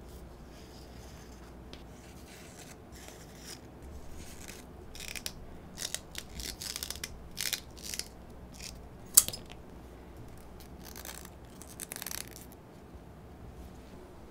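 Thin leather lace rubbing and sliding through fingers as it is pulled and worked into a ball knot: short, dry, scratchy strokes in two spells, with one sharp tick between them.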